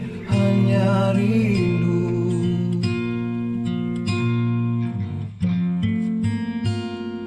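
Acoustic guitar playing the closing chords of a slow ballad, the strummed chords ringing out and gradually fading. A wavering held sung note carries over the guitar in the first second or so.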